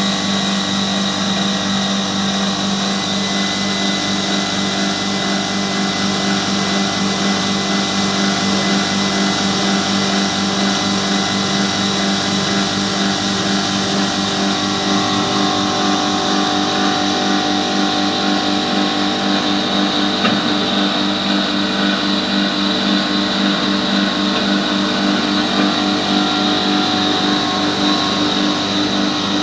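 Ashirwad pulverizer grinding mill running steadily under load, grinding grain fed from its hopper: a constant motor hum with a dense grinding noise and a steady high whine.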